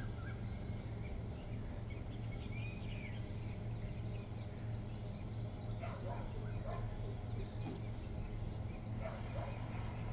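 Outdoor ambience: small birds chirping, with a quick run of repeated high notes midway and a couple of lower calls later, over a steady low hum.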